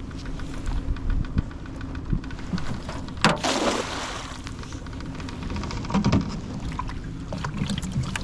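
Small knocks and rattles of gear being handled in a boat over a low steady rumble, with a sharp knock and a short splash of water about three seconds in.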